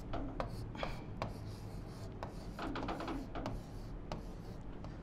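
A stylus writing on an interactive touchscreen board: irregular light taps and short scratchy strokes as figures are written out.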